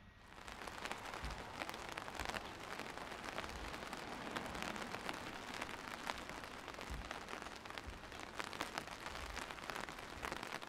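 Rain sound effect: steady rain with many separate drop hits over an even hiss, fading in at the start.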